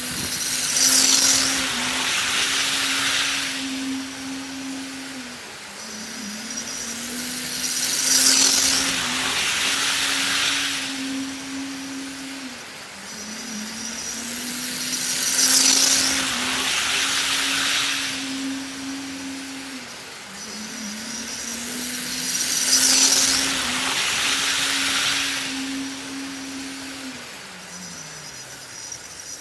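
HO scale model train running laps of a track loop, passing close four times about every seven and a half seconds with a rising and falling rush of wheels on rail over a steady motor whine. The whine drops in pitch near the end.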